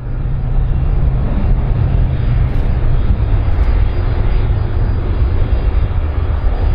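Airplane engine noise: a loud, steady rumble with a hiss above it.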